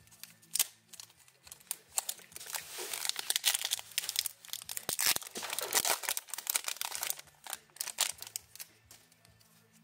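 Foil wrapper of a trading card pack crinkling and being torn open, a dense run of crackles lasting several seconds. A sharp click comes about half a second in.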